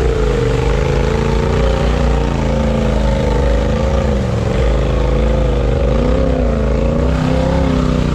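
Engine of a lifted Polaris side-by-side on oversized mud tires, revving up and down as it works through deep mud; its pitch keeps rising and falling with the throttle.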